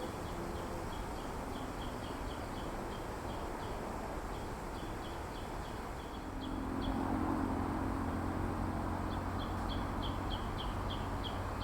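A small animal's short, high chirps repeated at about four a second, stopping midway and starting again, over steady outdoor background noise; a low hum comes in about six seconds in.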